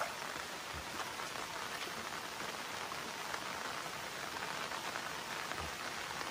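Steady rain falling on a river and its sandy beach, an even hiss.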